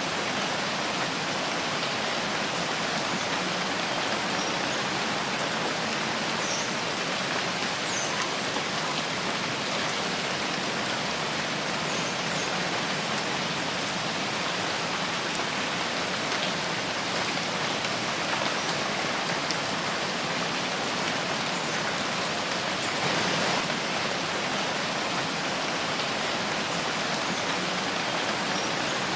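Steady rain falling in a forest, a dense even hiss of drops with a few faint separate drips, swelling slightly for a moment about two-thirds of the way through.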